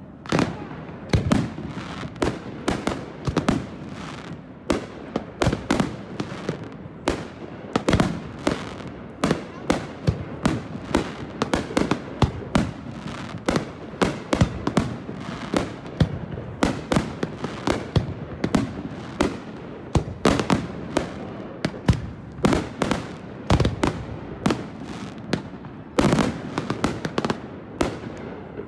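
Aerial firework shells bursting in rapid succession: sharp bangs several times a second over a continuous rumble, thickening into a dense volley near the end.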